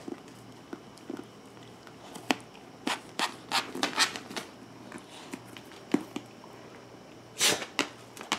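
Pit bull tearing and chewing at a cardboard box: irregular sharp crackles and short rips, bunched together in the middle, with one longer, louder burst near the end.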